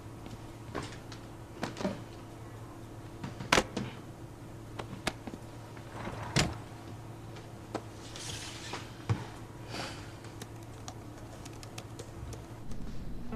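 Things being handled and set down on an office desk: scattered light clicks and knocks, two sharper knocks a few seconds apart, and brief rustles, over a low steady hum.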